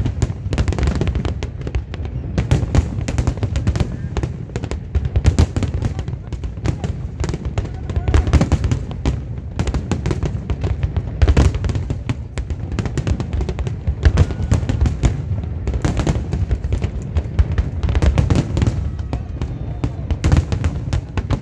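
Large aerial fireworks display: shells bursting in rapid, near-continuous succession, a dense run of deep booms and crackles.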